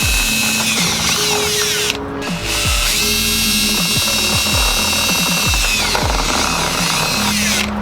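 Background music with a beat: deep bass notes that slide down in pitch under a bright, high synth line, with a short break in the high part about two seconds in.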